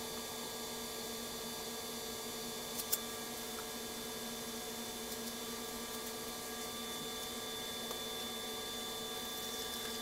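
Steady hum and hiss with a few constant tones, like an appliance or electrical hum in a room, and a faint click about three seconds in.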